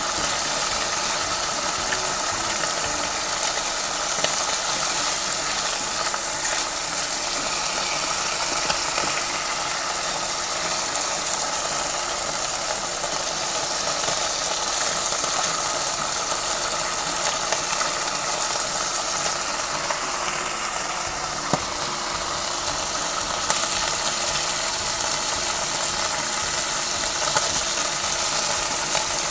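Chicken liver and onions sizzling and spattering in hot oil in a nonstick wok, with a wooden spatula stirring them now and then. Under the steady sizzle runs a faint steady hum.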